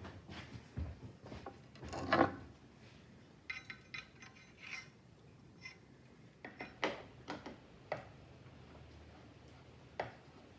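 Scattered knocks and clicks of hard parts being handled, the loudest about two seconds in, with a short run of ringing metallic clinks from about three and a half to five seconds in.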